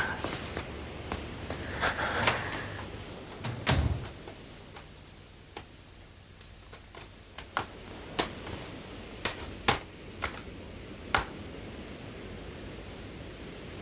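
Scattered sharp clicks and knocks of objects being handled, with one heavier knock and thump about four seconds in, over a steady hiss.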